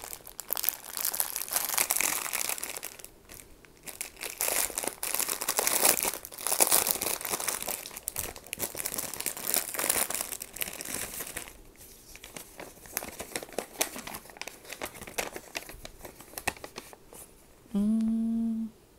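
Clear plastic packaging crinkling and rustling as hands pull it off a rolled diamond-painting canvas and bags of drills. The crinkling is busiest in the first half and sparser later. Near the end there is a short hum of about a second.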